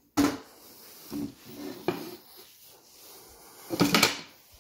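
Aluminium chassis lid being lowered and closed: a sharp clank just after the start, a few lighter knocks and rattles, then the loudest clatter near the end as it settles shut.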